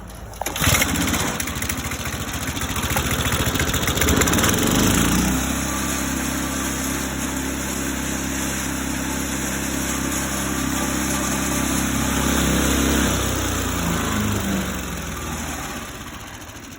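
Kemp wood chipper shredder's small gasoline engine starting right up: it catches about half a second in, runs unevenly for a few seconds, then settles into a steady run. Near the end its pitch wavers and it slows and quietens.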